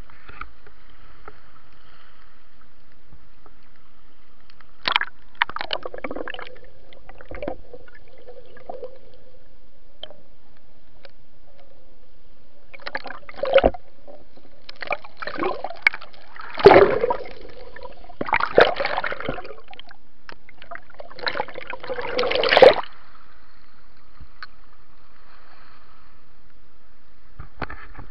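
Shallow sea water sloshing and splashing against a camera held at the water's edge, in several uneven bursts through the middle, over a steady faint hum.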